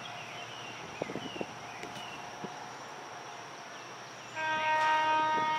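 Train horn sounding one long, steady blast, starting about three-quarters of the way in. Before it there is only a steady outdoor background with a few high chirps.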